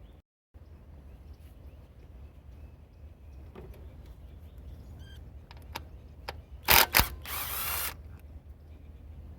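Cordless impact wrench spinning a small 10 mm coil-pack bolt on a Honda Accord engine: two sharp bursts about seven seconds in, then a loud buzzing run of under a second. A few light clicks of tool on metal come before it.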